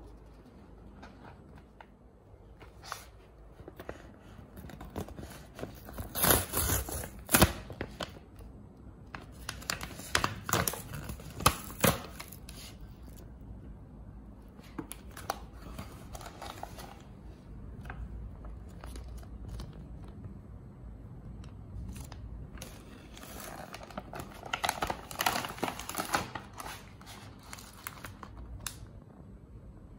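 Instant ramen pouch of paper and plastic being opened by hand, with its plastic-wrapped noodle block and seasoning sachets crinkling and rustling as they are handled, in irregular bursts that are loudest about six seconds in and again around ten to twelve seconds in.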